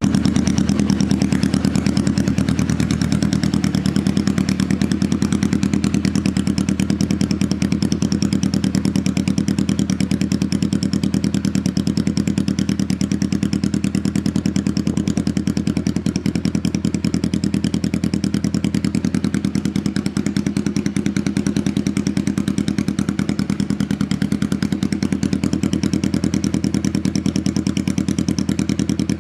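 Kawasaki EN400 Vulcan 400 parallel-twin engine running steadily through a Harley-Davidson Screaming Eagle silencer, with a deep, even exhaust beat.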